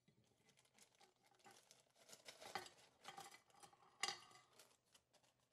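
A small plastic zip-lock bag crinkling as it is handled and opened, with many small clicks and rustles. About four seconds in, small model-ship kit parts tip out and click onto a hard board, the loudest sound.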